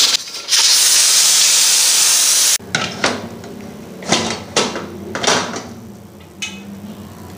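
Pressure cooker venting steam with a loud, steady hiss as its pressure is let out, stopping suddenly about two and a half seconds in. A few sharp metal clicks and knocks follow as the lid is worked open.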